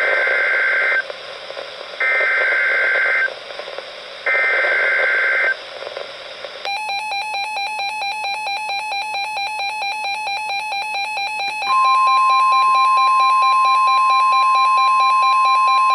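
NOAA Weather Radio EAS alert start: three short bursts of screeching two-tone SAME data header, then a rapidly pulsing electronic alarm from the weather radio. About halfway through, a steady single-pitched 1050 Hz warning alarm tone joins in, signalling a severe thunderstorm warning.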